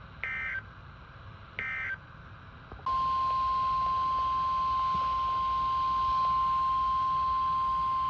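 Emergency Alert System digital data bursts: two short warbling end-of-message bursts, the last of a set of three, then about three seconds in the steady single-pitch 1050 Hz NOAA Weather Radio warning alarm tone starts and holds, announcing the next alert.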